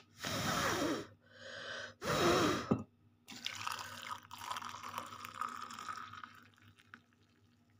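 Hot milk poured into a ceramic mug in two short pours, then fainter dripping.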